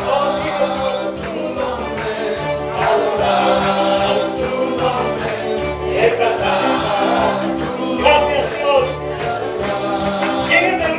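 Live gospel worship music: a group singing over bass and a steady beat, with tambourine.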